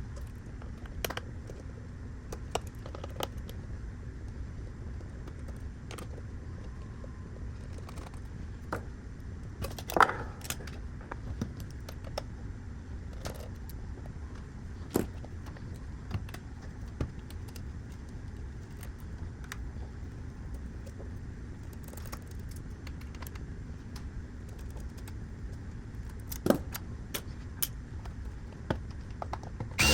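Xbox Series S console being taken apart by hand: scattered light clicks and small metallic clinks of screws, tools and casing parts, over a steady low hum.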